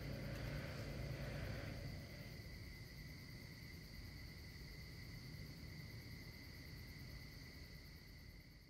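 Steady night insect chorus, a continuous high trilling, over a low rumble that dies down about two seconds in.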